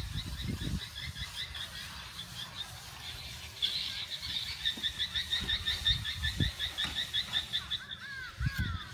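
A small animal calling in a rapid pulsed trill of high chirps, about six a second, that grows stronger about halfway through, with a short wavering squeak near the end. Beneath it are soft, irregular scrapes of steel trowels smoothing wet cement render on a wall.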